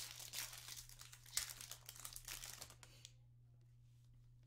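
Foil trading-card pack wrapper crinkling as it is sliced open and pulled apart, stopping about three seconds in.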